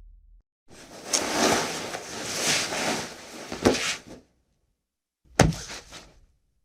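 A body dragged across a cement floor, scraping for about three and a half seconds with a couple of knocks. Then, after a pause, it drops with a single heavy thud.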